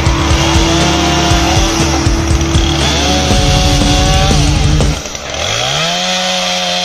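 Two-stroke chainsaw revving up and down in repeated throttle blips; in the last, about five seconds in, it climbs from idle, holds at full revs for over a second and drops back.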